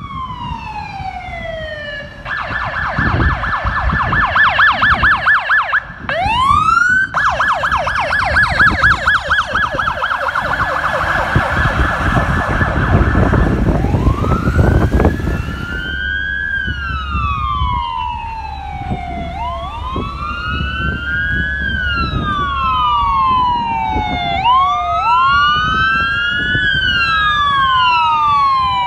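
Electronic emergency-vehicle sirens, led by a police car's: a fast warbling yelp broken by a short rising whoop, then a slow rising-and-falling wail. A vehicle rumbles past around the middle, and in the second half another wail siren overlaps, out of step with the first.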